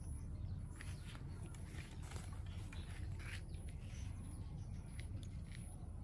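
Outdoor ambience: a steady low rumble with scattered faint clicks and taps, and a faint high chirp repeating about every two-thirds of a second.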